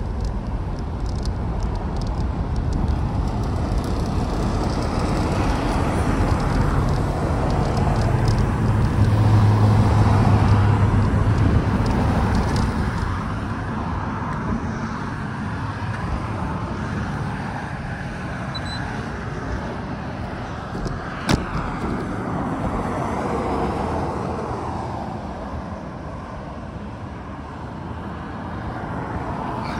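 Road traffic: cars passing on a street, with a louder vehicle's low engine hum swelling and fading about ten seconds in. A single sharp click sounds about twenty-one seconds in.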